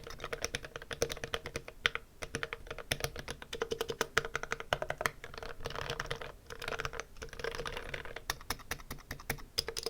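Typing on a Tokyo60 V3 Happy Hacking–layout mechanical keyboard with pre-lubed Everglide orange linear switches: a fast run of key clacks with quicker flurries in the middle. The switches' spring noise is dampened, so there is little case ping.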